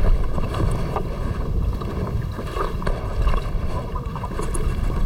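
Wind buffeting the microphone in a steady, uneven low rumble out on open water, with faint small knocks and clicks from handling on a small wooden outrigger boat.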